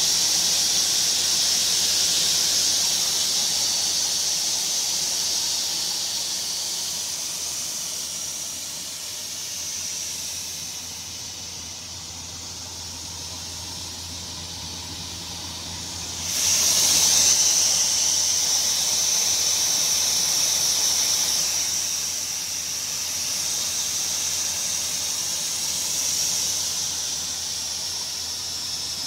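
Altendorf F45 sliding table saw running without cutting: a steady high-pitched whine and hiss from the spinning blade over a low electric motor hum. The loudness falls off and comes back, with a sudden jump about halfway through.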